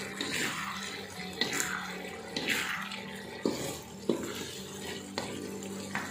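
Wooden spatula stirring and scraping through a bubbling, sizzling sauce in an aluminium wok as the liquid cooks down, with several sharp knocks of the spatula against the pan.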